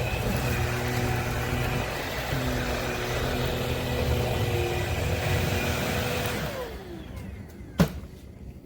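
Bissell PowerClean FurGuard cordless stick vacuum running with a steady whine and rush of air. It then winds down with a falling whine and goes much quieter, and a single sharp click follows near the end.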